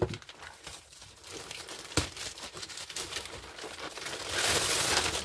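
Plastic poly mailer bag crinkling and crackling as it is handled and opened, with a sharp crackle about two seconds in and a louder, longer stretch of rustling near the end.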